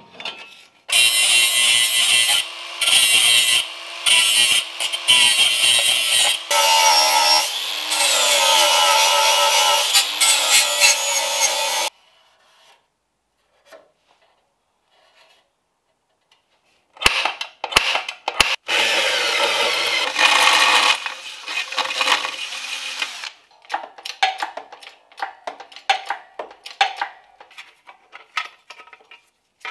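A power tool cutting sheet steel in long loud spells, its pitch wavering and gliding. It breaks off about twelve seconds in and cuts again for several seconds after a pause, then gives way to scattered clicks and knocks of metal being handled.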